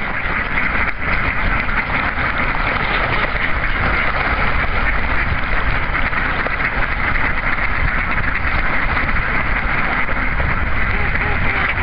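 Steady, dense din of a huge flock of mallards feeding and splashing on shallow flooded water, many birds calling at once, with a low rumble underneath.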